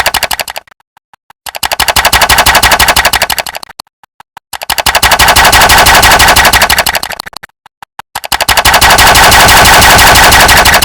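A click sound effect repeated very rapidly, like rapid fire, in runs of two to three seconds separated by short pauses, each run swelling up and fading away.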